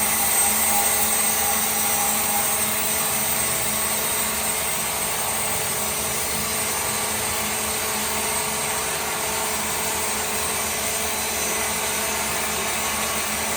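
A machine motor running steadily, a constant hum and whir with a hiss over it.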